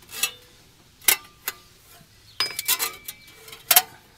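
Sharp metallic clinks and clanks at irregular spacing, some ringing briefly, as a Ford 460 big-block is turned over by hand with a ratchet: the ratchet bumping the power steering pulley and the flex fan rattling.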